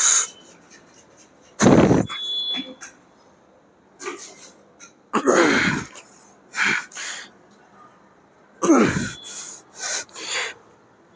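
A man grunting and breathing out hard as he strains through repetitions of a dumbbell press, a loud falling grunt about every three and a half seconds, with quieter breaths in between.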